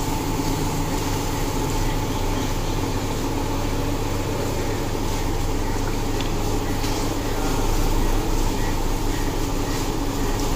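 Steady low mechanical hum with a few constant tones, engine-like, rising slightly in level about eight seconds in.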